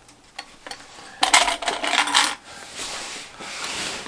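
Small sewing clips clicking and clattering as they are handled and snapped onto the jacket hem, loudest in a rattling burst of about a second, followed by a softer rustle of the jacket fabric.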